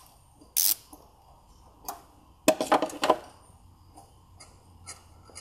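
Hand ratchet with a T30 Torx bit clicking in short spells as it backs out the screw holding a camshaft position sensor, with a few light tool clinks and faint ticks near the end.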